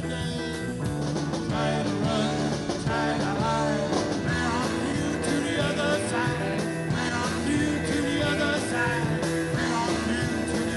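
Rock band playing live, with a singer's voice over the band.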